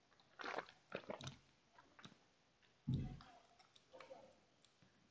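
A man drinking black tea with milk from a mug: a few short, faint sips and swallows, the loudest about three seconds in.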